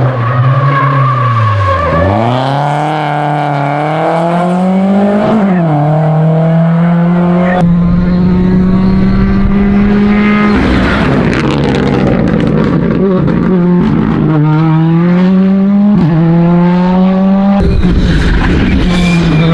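Rally cars at full throttle on a tarmac stage, engine pitch climbing through the gears and dropping sharply on lifts and downshifts, with tyres squealing at times. The sound switches abruptly between cars several times.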